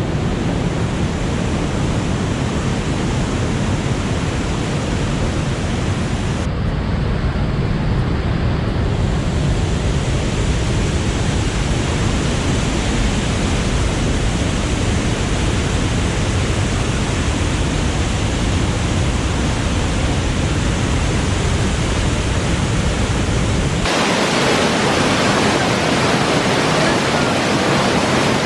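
Steady rush of a seasonal waterfall running high with rain water. Near the end the deep rumble drops away and the hiss of the falling water turns brighter.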